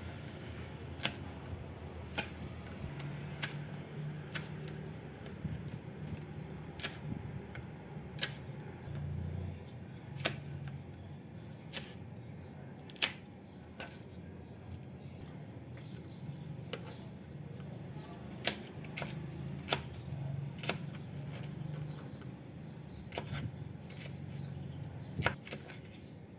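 Irregular light clicks and taps, roughly one every second or two, over a faint low hum that comes and goes.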